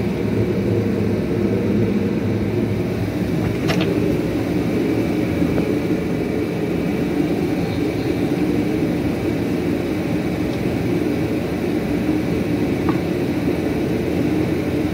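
Steady mechanical whirring drone from workshop equipment running in the background, with a single light click about four seconds in.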